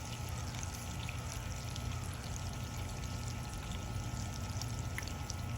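Steady rushing background noise with a low hum underneath, and a faint click about five seconds in.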